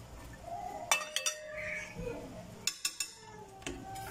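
A kitchen utensil clinking against a glass Pyrex dish while cooked chicken pieces are moved into it. There are a few sharp clinks, and the one about a second in rings briefly.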